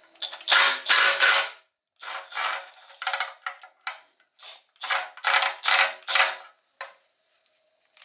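Hand ratchet clicking in repeated short bursts of strokes, backing out the engine's oil pan bolts.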